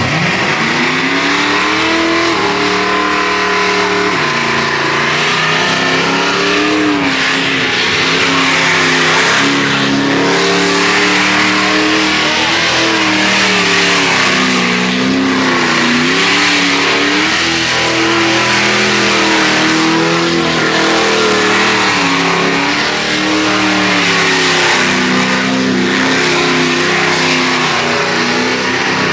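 Car doing a burnout: the engine is held at high revs, rising and falling, while the spinning rear tyres screech continuously.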